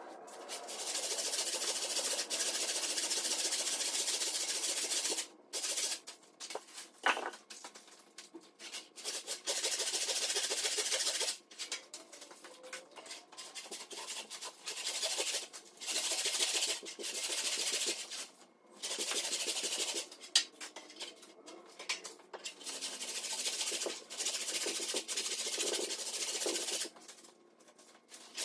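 Old hand saw ripping lengthwise through a log, the teeth cutting the wood in spells of steady sawing broken by short pauses.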